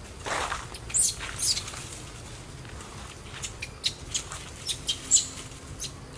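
Leaves and branches rustling in a tree as monkeys move through it: two sharp swishes about a second in, then a scatter of short clicks and snaps.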